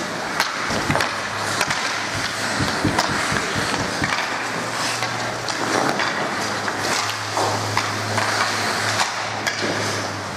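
Ice hockey skates scraping across the ice, with many sharp clacks of sticks on the ice and puck, over a steady low hum.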